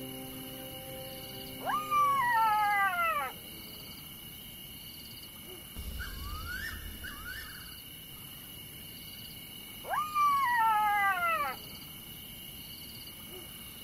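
A wild animal's howling call, heard twice: each call jumps up quickly in pitch, then falls away in a long wail lasting over a second. A fainter call comes between them, over a steady high insect drone with a soft repeating chirp.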